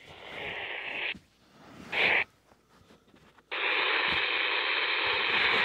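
Weather radio receiver putting out static hiss: about a second of it, a short loud burst about two seconds in, then loud, steady static from about three and a half seconds in.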